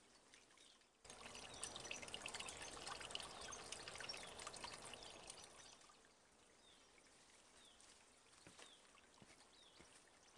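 Faint trickling water that starts suddenly about a second in and fades away after about five seconds, with a small bird giving short repeated chirps in the second half.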